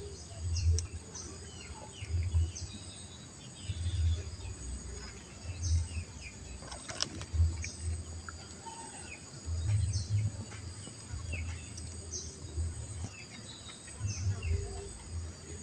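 Outdoor ambience: a steady high-pitched insect drone with short bird chirps every second or so, over repeated low rumbling bumps.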